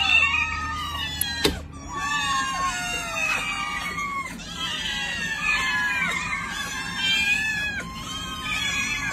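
A large crowd of kittens meowing all at once: many high, overlapping meows, each falling in pitch. One sharp click sounds about a second and a half in.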